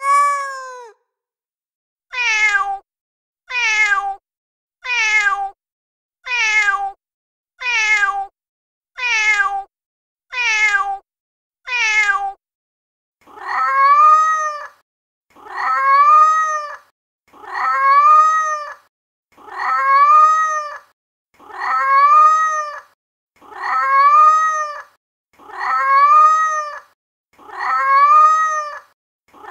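Recorded domestic cat meows played back on a loop from a cat-sound app. First comes a run of short, falling meows about one every 1.2 seconds. Then, from about thirteen seconds in, a different, longer meow that rises and falls repeats about every two seconds.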